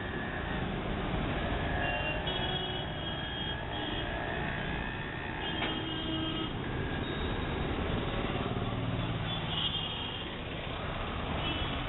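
Street traffic going by: vehicles running and passing, with a few short high-pitched tones.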